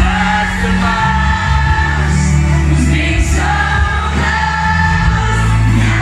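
Live Eurodance song played loud through a club PA: a heavy synth bass under sung vocals that hold long notes.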